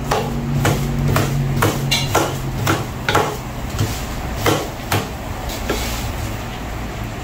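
Two wooden paddles beating a cooked paratha roti on a flat iron tawa, giving sharp, irregular knocks about two a second that thin out in the second half, over a steady low hum. This is the roti being clapped and torn into buss up shut.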